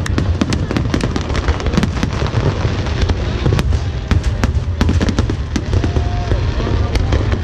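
Aerial fireworks display: a rapid, irregular series of bangs and crackles over a continuous low rumble.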